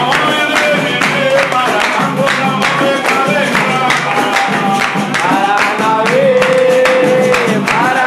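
Capoeira roda music: singing over steady rhythmic hand-clapping and percussion, with a plucked-string-like twang in the mix. About six seconds in, a voice holds one long note.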